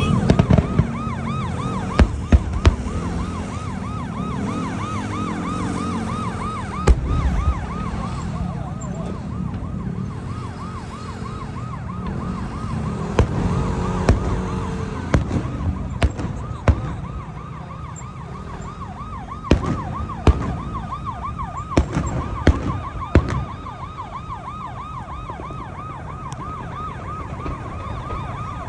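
Fast-warbling electronic siren that sounds without a break, with sharp bangs of fireworks going off now and then and a low traffic rumble underneath.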